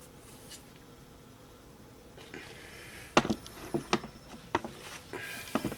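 Handling noise: quiet at first, then from about two seconds in a scatter of sharp clicks and knocks of hard parts being moved, with light rubbing between them.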